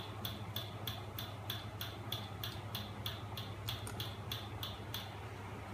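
Home-built magnet crankshaft engine running: a steady low hum from its small 12 V electric motor, with a sharp tick about three times a second from the turning mechanism that stops about five seconds in.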